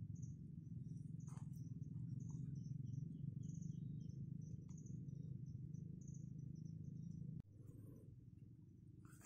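Insects, crickets or the like, chirping in short high-pitched pulses at an even pace, about two a second, over a faint low steady rumble. The rumble drops away abruptly about seven seconds in.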